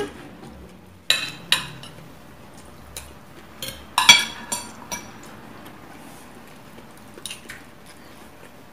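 Metal spoons and forks clinking and scraping against ceramic plates and serving dishes as food is scooped up to eat, in scattered single clinks with a louder cluster about four seconds in.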